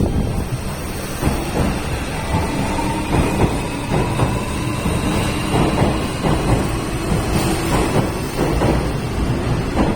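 Hanshin Railway train moving through the station: a loud low rumble with repeated wheel-and-rail clatter and a faint whine from the train's motors.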